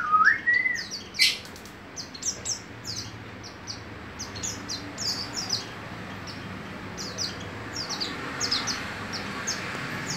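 Caged pleci dakun white-eye singing: a long, rapid run of short, high, falling chirps. A lower whistled glide sounds at the very start, and a sharp click about a second in.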